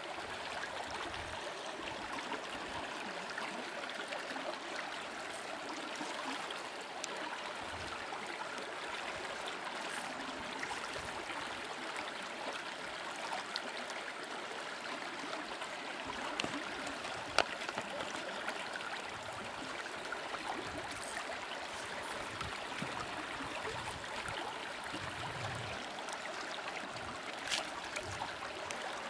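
River current flowing steadily over rocks: a constant rush of water, with a few faint clicks.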